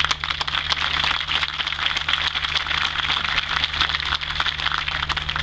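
Crowd applauding: a dense, even patter of many hands clapping.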